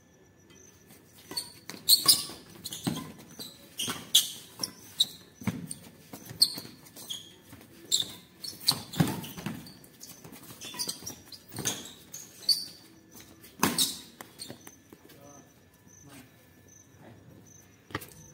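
Badminton doubles rally on a concrete court: a long string of sharp racket-on-shuttlecock hits with shoe scuffs between them, the hits dying away about 14 seconds in.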